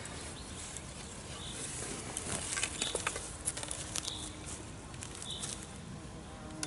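Light clicks and rustling from a landing net's frame and handle being handled and set up, thickest in the middle, with a short high chirp recurring about every second and a half.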